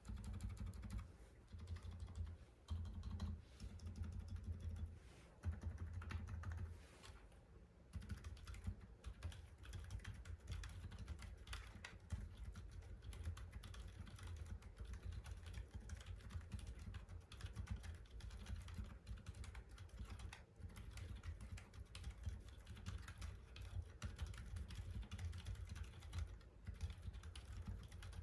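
Typing on mechanical keyboard keys fitted with Outemu mute (silent) yellow MX-style switches: a fast, continuous run of keystrokes, with a few short pauses in the first several seconds and unbroken typing after about eight seconds.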